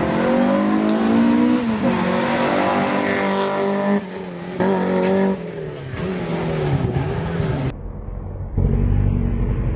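Classic rally car engines revving hard on a street stage, the pitch climbing and dropping with gear changes. The sound breaks off abruptly a few times, and near the end gives way to a steady low rumble.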